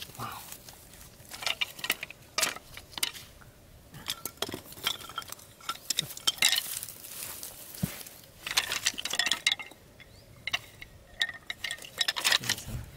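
Dry bamboo sticks clacking and clattering against each other as they are handled and set down, in several short clusters of knocks with a brief hollow ring.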